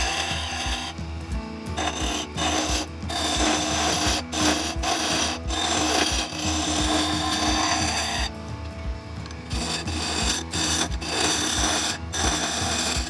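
Carbide turning tool scraping a spinning ipe drumstick blank on a small wood lathe: a steady rasping cut over the motor's hum. The cut lets up briefly about a second in and again around eight seconds in while the lathe keeps running.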